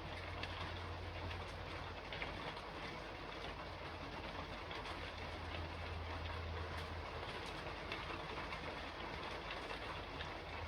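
Rain falling steadily on a roof: an even hiss of many small drop ticks, with a low hum underneath that swells and fades a few times.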